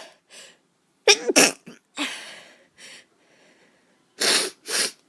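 A woman sneezing: a loud voiced sneeze about a second in, followed by breathing, then two short sharp breathy bursts near the end.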